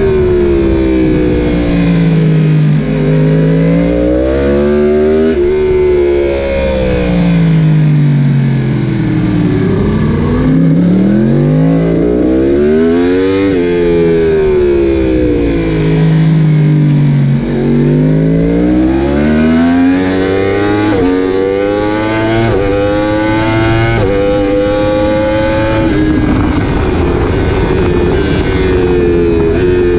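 Yamaha YZF-R1's inline-four racing engine heard onboard at full pace: revving hard up through the gears, then dropping back for corners, again and again. A run of quick upshifts late on, each a sudden drop in pitch, with a steady rush of wind and road noise under the engine.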